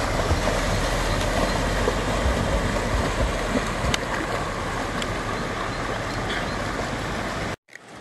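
River water rushing steadily at a crossing. It cuts off suddenly near the end.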